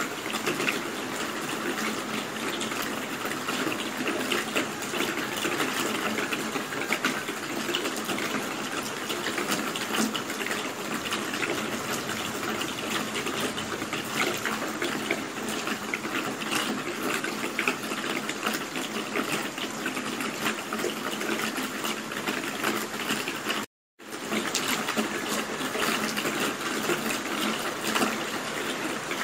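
Steady heavy rain, a dense hiss flecked with countless individual drop hits. About four-fifths of the way through, the sound cuts out completely for a split second, then resumes.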